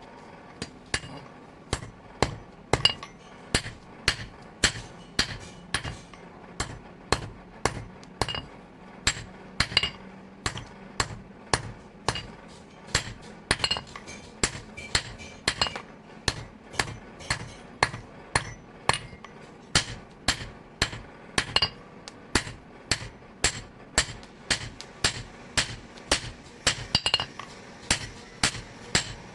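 Blacksmith's hand hammer striking steel on an anvil in a steady rhythm of about two blows a second, each blow with a short metallic ring: the steel from a tractor bearing being forged into a knife.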